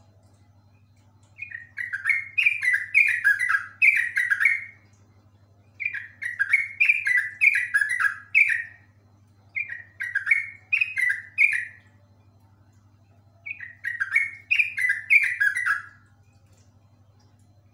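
Yellow-vented bulbul (trucuk) singing in four bursts of a few seconds each, every burst a quick run of bubbly, falling notes. A faint steady low hum lies underneath.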